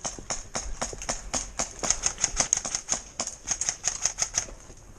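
Airsoft guns firing: a fast, irregular stream of sharp clicks, several a second, that thins out near the end.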